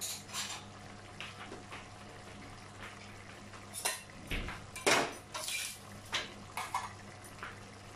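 Metal utensil clinking, knocking and scraping against an aluminium pressure cooker pot as boiled potatoes are mashed in it, in scattered irregular strokes over a faint steady hum.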